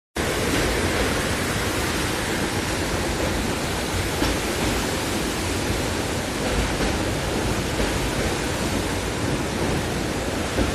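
Steady, loud rushing of flowing water, unbroken and even throughout.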